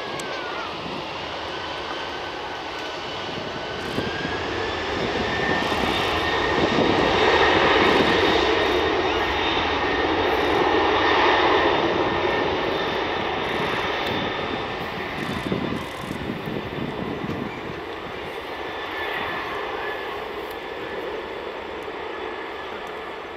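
Boeing 747-400F freighter's four turbofan engines at takeoff thrust, growing louder to a peak about a third of the way in and then fading as the aircraft moves away, with a steady high whine over the jet noise.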